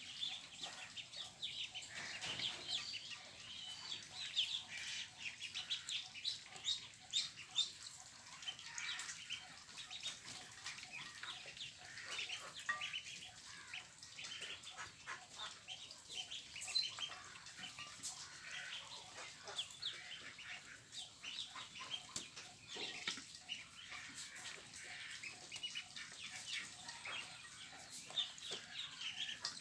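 A large flock of poultry calling in a dense, continuous chorus of short overlapping calls, with some wing flapping.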